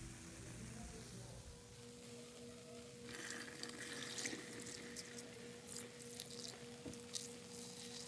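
Soapy sponge being squeezed in sudsy water, with wet squelching and crackling foam starting about three seconds in, over a faint steady tone.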